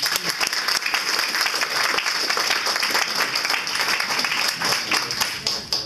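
Audience applauding: dense, even clapping that stops sharply near the end.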